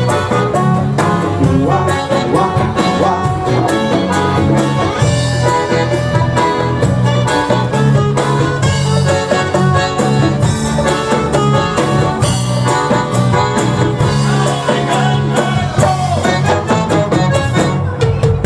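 Live band playing an instrumental passage of music, with no vocals.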